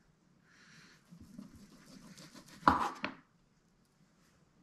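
Knife slicing through corned elk meat on a wooden cutting board: faint scraping strokes, with a short knock against the board a little under three seconds in.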